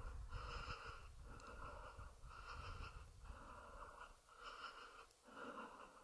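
A hiker's quick, faint breathing, in and out about once a second.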